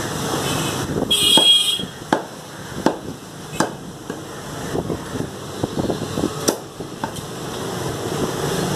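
Meat cleaver chopping mutton on a wooden chopping block: a series of sharp, irregular chops, roughly one a second. A brief, loud, harsh high-pitched sound comes about a second in, over a steady low background rumble.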